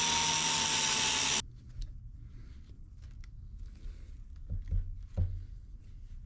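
A small high-speed power tool runs with a steady whine as it cuts through a metal hose clamp whose squeeze tab has broken off, and stops about a second and a half in. After it come scattered light clicks and knocks of the parts being handled.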